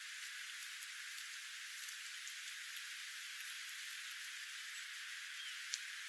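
Steady outdoor background hiss with the low end filtered out, with scattered faint ticks and one sharper tick near the end.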